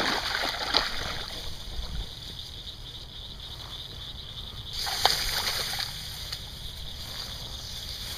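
A hooked channel catfish being hauled out of a pond through tall grass: splashing at the water's edge and grass rustling, with a sharper splash and rustle about five seconds in.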